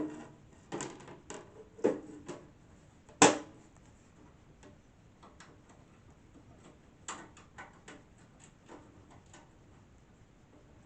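Scattered clicks and knocks of a computer case's side panel being handled and fitted back onto the case, the loudest knock about three seconds in and another run of clicks a few seconds later.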